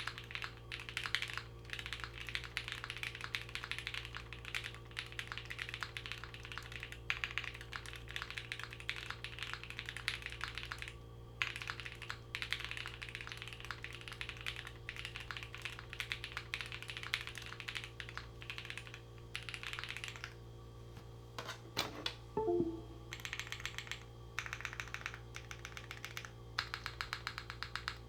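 Custom Vertex Angle mechanical keyboard with linear JWK Blueys switches on a polycarbonate plate and GMK keycaps, typed on in a fast, continuous stream of keystrokes with a few short pauses. The PC plate makes it really quiet. A louder knock with a brief ring stands out a little past the middle.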